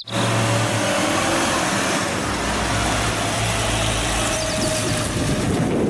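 A motor-vehicle engine sound for the toy school bus, running steadily as a low hum under a hiss. It starts and cuts off abruptly.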